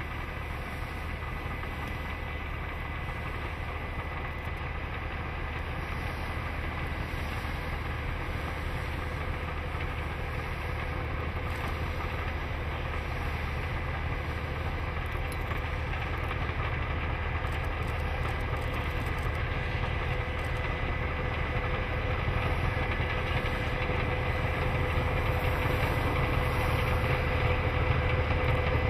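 DD14 diesel-hydraulic rotary snowplow locomotive at work clearing snow from the track: a steady engine and rotary-blower rumble with a thin steady hum over it. It grows louder as the machine comes closer.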